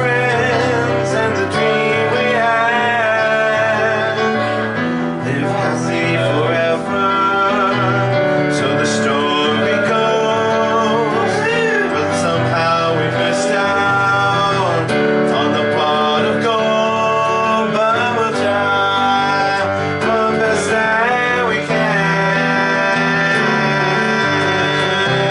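Music: a man singing with guitar accompaniment, steady and continuous.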